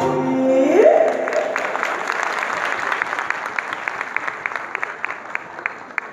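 Folk dance song with singing ends about a second in, followed by scattered hand clapping, several claps a second, that thins out and fades.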